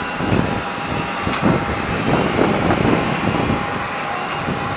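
Jet engines of a Boeing 757-300 rolling down the runway, heard from a distance as a steady roar with a faint whine running through it.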